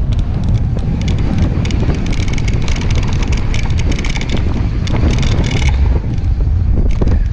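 Wind buffeting the camera microphone on a fast mountain-bike descent, with the clatter and rattle of the bike and tyres running over a rough dirt and gravel trail.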